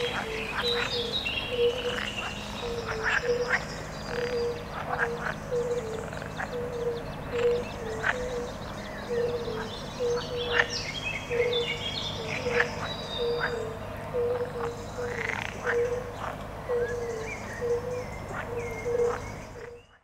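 Marsh ambience of frogs croaking in a steady rhythm, about two croaks a second, with scattered higher chirps over it. Fades out at the very end.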